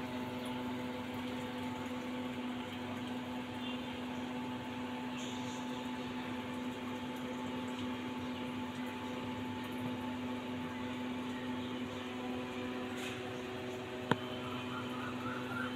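Steady machine hum, one low tone with fainter higher tones over it, unchanging throughout; a single sharp click about fourteen seconds in.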